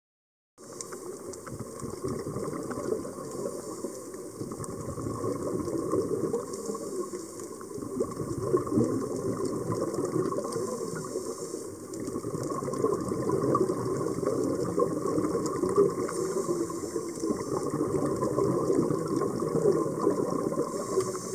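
Underwater sound heard through a dive camera's housing: continuous bubbling and crackling of water, swelling and easing every few seconds.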